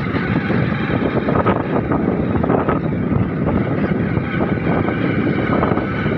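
Motorcycle riding along at speed: the engine running steadily under heavy wind rushing over the microphone.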